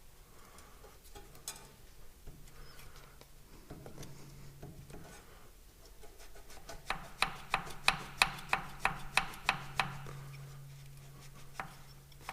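Hand tools working on tractor metal: light scraping and handling, then about halfway through a quick, even run of about a dozen sharp clicks, some four a second, lasting about three seconds.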